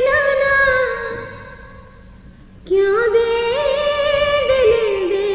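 A woman singing a Muharram lament (noha), holding long drawn-out notes with ornamented slides. One phrase dies away about a second in, and after a short pause a new phrase begins about halfway through.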